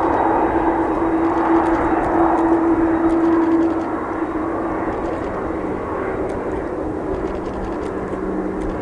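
Jet engines of a Boeing 787-8 running, a steady rushing noise with a hum that fades away about four seconds in, where the sound drops slightly; a lower hum comes in later.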